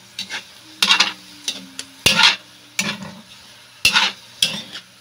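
A metal utensil stirring and scraping pork pieces around a large metal wok: a series of sharp scrapes at irregular intervals over a faint sizzle of the meat frying as it gives up its juices.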